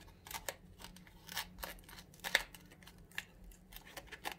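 Kitchen knife cutting through the stalks of a raw cauliflower to separate it into florets: a run of short, crisp, irregular snaps and crunches, the loudest about a second and a half and two and a half seconds in.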